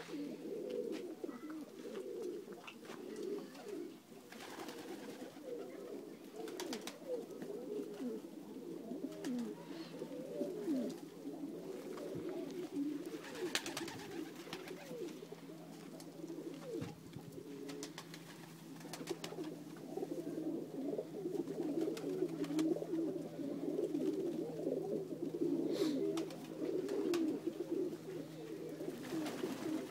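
A flock of Macedonian Dunek pigeons cooing continuously, many birds overlapping, with a few brief clicks.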